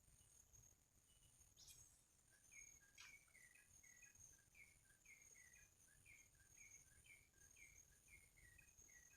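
Faint outdoor ambience of insects trilling steadily at a high pitch, with a bird giving a regular series of short chirps, about two a second, beginning a few seconds in. Two brief sharp clicks come early on.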